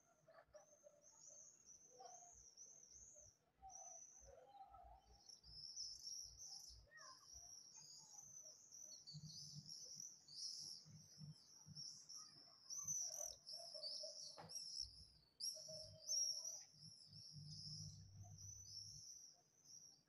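A flock of common swifts screaming in flight: many shrill, high, trilling calls overlapping, growing denser about a quarter of the way in. The calls are faint overall, with a few lower chirps among them.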